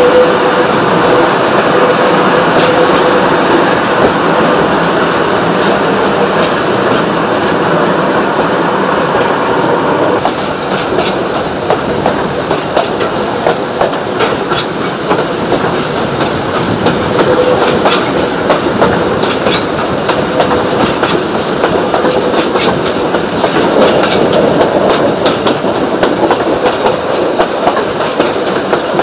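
Early-1900s South Australian Railways wooden passenger carriages rolling along a narrow-gauge track behind a steam locomotive, with a steady rumble of wheels on rail. From about a third of the way through, sharp clicks of the wheels over rail joints come thick and fast.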